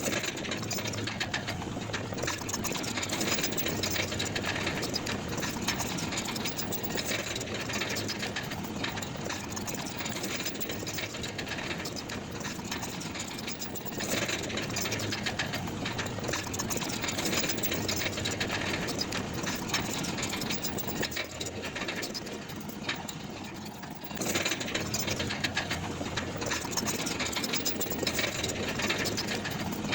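Heavy machine's diesel engine running with a fast, rattling clatter, the sound changing abruptly twice.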